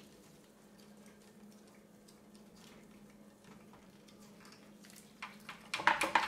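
Light metal handling clicks from hand tools working on a Subaru EJ25 engine, over a faint steady hum. Near the end, a loud run of sharp clicks starts, about three a second.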